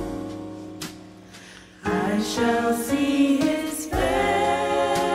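Gospel choir singing: a held chord fades down, then the voices come back in loudly about two seconds in and swell again with a fresh attack near four seconds in.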